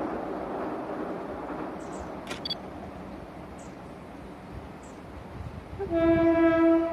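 JR 381-series limited express train sounding its horn about six seconds in, out of sight: one long, steady, loud note. Before it, a low rumble fades away.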